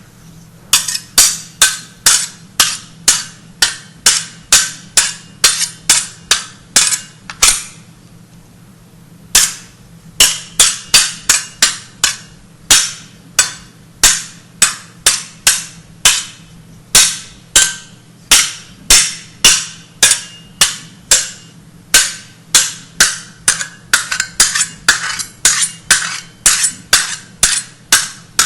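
A hammer striking in a steady rhythm, about two sharp blows a second, each with a short bright ring. The blows stop for nearly two seconds about a third of the way in, then resume. A steady low hum runs underneath.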